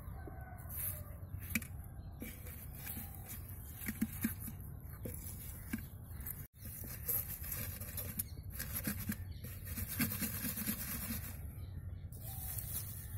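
Palmyra palm sprouts knocking and clattering as they are packed one by one into a clay pot: scattered short wooden clicks over a steady low outdoor rumble.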